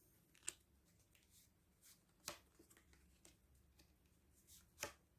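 Near silence broken by three soft taps of Lenormand cards being laid down on a table.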